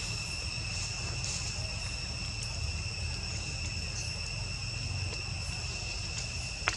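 Insects calling in a steady, unbroken high-pitched drone over a low background rumble, with a single sharp click near the end.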